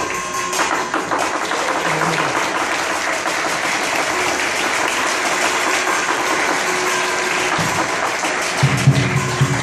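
Lion dance percussion: a dense wash of cymbal and gong clashes, with the big lion drum coming in loud and fast about a second before the end.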